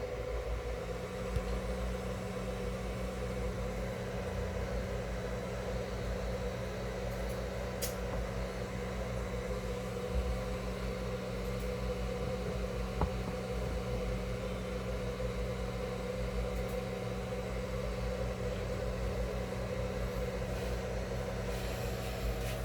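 Steady low mechanical hum with a constant tone that comes in about a second in and holds unchanged, with a few faint ticks.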